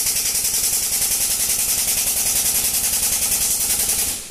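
A machine running with a rapid, even pulsing and a strong hiss, stopping abruptly about four seconds in.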